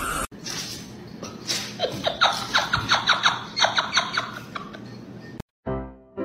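A person laughing in a quick run of short bursts, then music with a steady pulse begins about five and a half seconds in.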